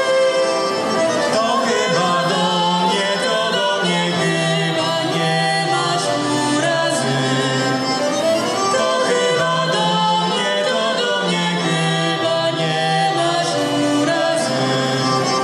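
A group of voices singing a folk song, with instrumental accompaniment and a steady bass line.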